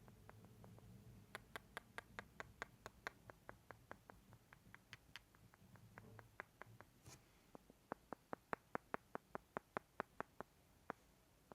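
Close-miked ASMR mouth sounds: runs of quick mouth clicks at about four or five a second, in three runs with short pauses between, the last run the loudest.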